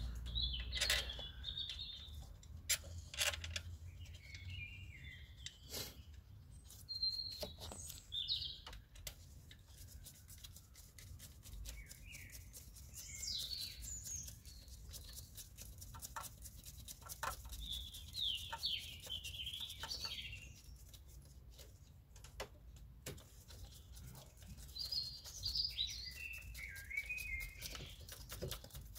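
Small birds chirping in short bursts every few seconds, with scattered light clicks and taps of hand tools as bolts are screwed down on the engine.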